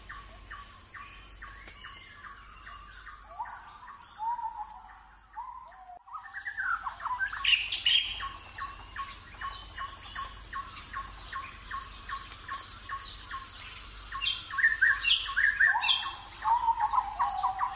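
Several birds chirping and singing, with short rapid chirps and gliding calls overlapping throughout. The sound briefly drops out about six seconds in.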